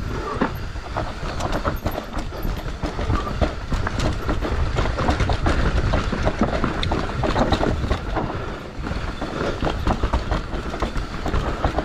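Mountain bike rattling down a rough dirt forest trail: tyres rumbling over dirt and roots, with dense clicking and clattering from the chain and frame over the bumps, heard close to the bike.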